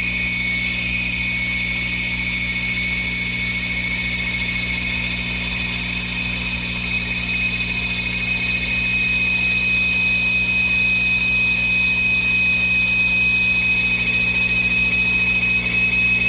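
Monarch 10EE toolroom lathe running during a turning cut, with a steady high-pitched whine over a low hum. The whine steps up slightly in pitch right at the start.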